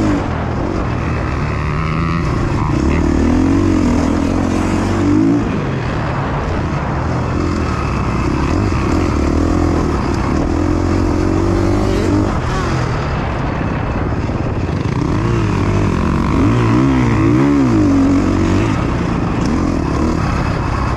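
KTM 350 XC-F's single-cylinder four-stroke dirt bike engine being ridden hard, its pitch rising and falling again and again as the throttle is opened and closed. Near the end it swings up and down several times in quick succession.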